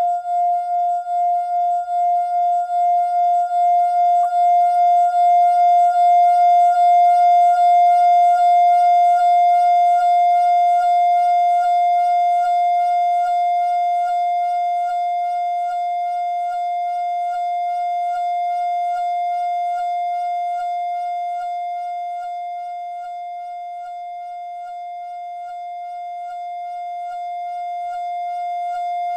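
A wine glass's ringing tone fed through a high-feedback delay, the repeats piling up into one sustained ringing drone with a stack of overtones. It pulses at first, smooths into a steady tone, then dips slowly in level and swells again near the end.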